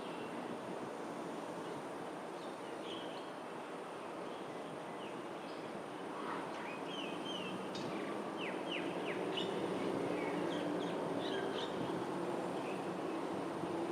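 Several birds giving short chirps and quick sweeping call notes, scattered and busiest in the middle of the stretch. Underneath is a steady background hum that grows a little louder in the second half.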